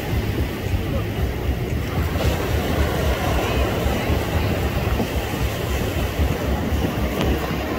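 Small sea waves breaking and washing in at the shoreline, a steady surf noise with wind on the microphone.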